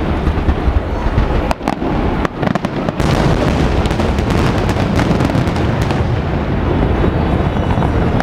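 Aerial firework shells bursting, starting with a sudden loud report, then scattered bursts and, from about three seconds in, a dense unbroken run of reports.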